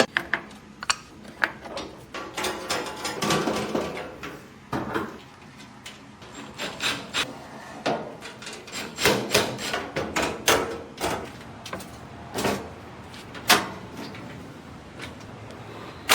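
Irregular knocks, clicks and scraping of hard objects being handled and moved about.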